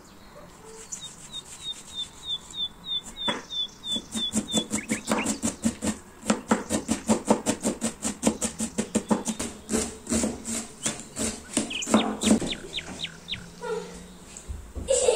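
Knife chopping onion on a plastic cutting board: a few separate slicing knocks, then a rapid even run of blade strikes, about four to five a second. About a second in, a bird chirps a quick run of a dozen high notes, and there is a brief louder noise at the very end.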